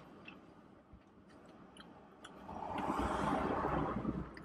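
A passing car outside, heard from inside a parked car: a swell of road noise that builds about two and a half seconds in and fades near the end. Faint chewing clicks come before it.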